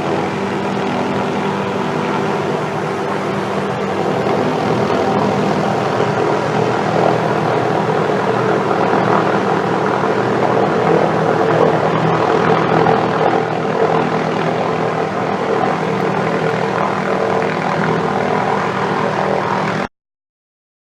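Helicopter running steadily overhead, its rotor and engine making a loud, even drone with a chord of steady tones; the sound cuts off abruptly near the end.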